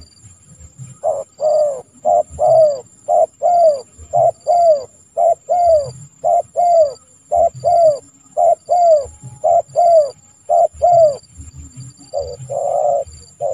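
Spotted dove (tekukur) cooing: a long run of short falling coos, mostly in pairs, starting about a second in, with the notes becoming longer and fuller near the end.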